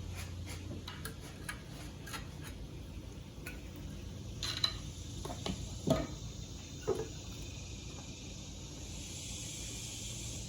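Hand tools working on a car engine: a run of light metallic clicks and clinks, about three a second, then a few louder knocks in the middle.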